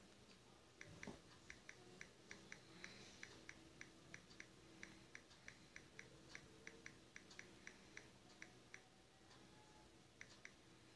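Faint, quick clicks of typing on a smartphone's on-screen keyboard while texting, about three taps a second, pausing briefly before a few more taps near the end.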